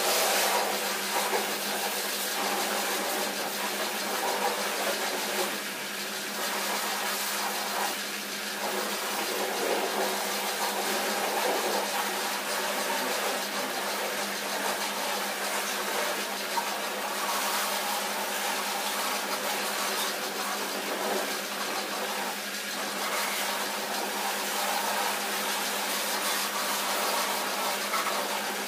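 High-pressure washer jet spraying water onto a car's wheels and underbody: a steady hiss of spray, with a steady low hum underneath.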